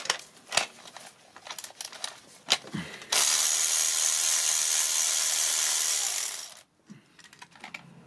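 Metal clinks of a socket and extension being fitted, then a cordless electric ratchet runs steadily for about three and a half seconds, unscrewing a spark plug, and stops.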